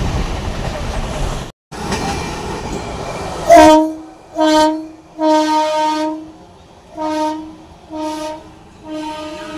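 Indian Railways train horn sounding a series of about six blasts, short and long, the first the loudest, after a few seconds of train running noise.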